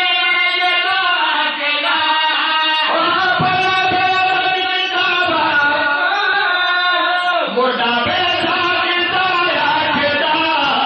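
A group of men chanting devotional verse together into microphones, a zakir with his backing singers at a Shia Muharram majlis. The chant moves in long, held, ornamented notes, with brief breaths about three seconds in and again near the middle.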